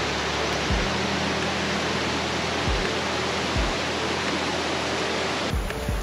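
Fast-flowing mountain stream rushing over rocks and rapids: a dense, steady roar of water. Under it runs soft background music with low sustained bass notes and a few soft low beats.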